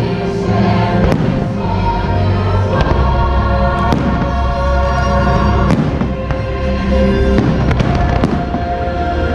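Fireworks shells bursting in a series of sharp bangs over the show's music soundtrack, which plays steadily throughout.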